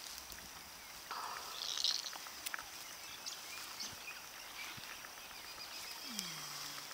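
Pasture sounds during a cow's calving: a steady high hum with scattered small rustles and clicks, and a brief louder rasp about two seconds in. Near the end the labouring cow gives a short low moan that falls in pitch and then holds.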